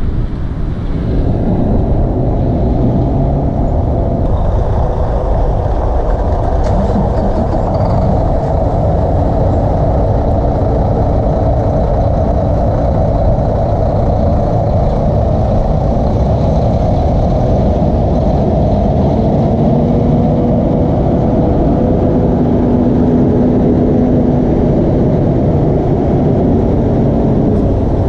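Steady, loud rumble of a semi tractor's diesel engine as the truck pulls away, with a few engine tones that waver up and down.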